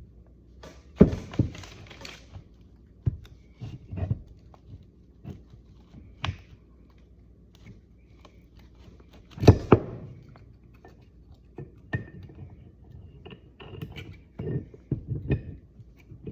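Irregular metal knocks, clicks and clinks of parts being handled and worked against a 1954 Chevrolet Bel Air steering knuckle, as a shim that will not go in is tried. The loudest knocks come about a second in and again about halfway through.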